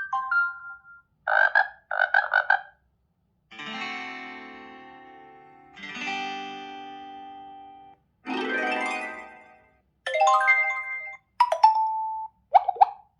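Xiaomi 12 Pro ringtones played one after another as short separate clips with brief silences between them. There is a short tone, then two buzzy pulsed sounds, then two chords that each ring and fade over about two seconds. A noisy rising sweep follows, and a few short chime-like tones come near the end.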